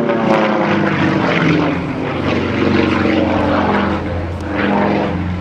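Single-engine propeller aerobatic plane flying overhead, its engine and propeller note shifting up and down in pitch as it manoeuvres.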